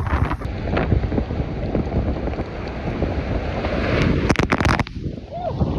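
Hurricane wind blowing hard across the microphone: a dense rumbling rush that builds about four seconds in, broken by a few sharp knocks, then eases briefly near the end.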